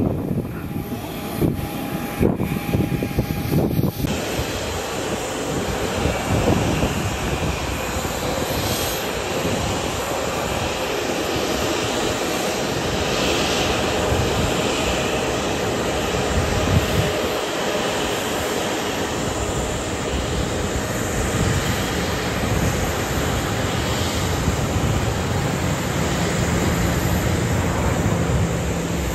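Wind buffeting the microphone, then after a cut about four seconds in, the steady rushing noise of a distant Airbus A320's jet engines as it runs along the runway on its takeoff roll.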